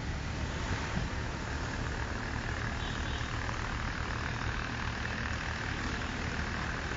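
Steady vehicle engine hum and road noise, heard from inside a moving vehicle.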